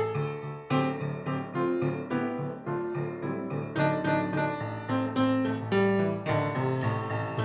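Solo acoustic grand piano, about 100 years old, playing an instrumental passage of chords and a moving melody line, each note struck sharply and left to ring.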